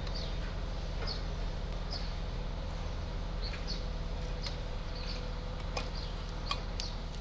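A small animal's short, high chirp, each a brief falling note, repeating about once a second over a steady low hum, with a few faint clicks in the second half.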